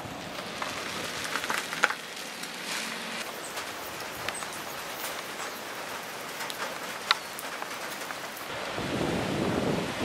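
Typhoon wind and rain: a steady rushing hiss scattered with small ticks and taps, swelling louder near the end.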